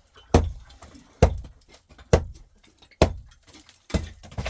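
Five heavy hammer blows on concrete block or masonry, evenly spaced a little under a second apart, each a sharp knock that dies away quickly.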